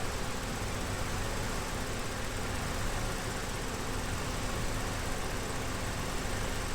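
Vauxhall Corsa E's 1.4 Ecotec petrol engine idling steadily with its mass air flow sensor unplugged. The car has a misfire and a lean fault; with the sensor disconnected it runs smoother, but not perfectly.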